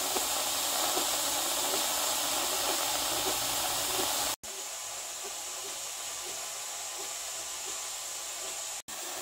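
Steam hissing steadily out of the open vent tube of a 23-quart Presto pressure canner during the purge, driving trapped air out of the canner and jars before the weight goes on. The hiss drops out briefly twice and is a little quieter after the first break, about four and a half seconds in.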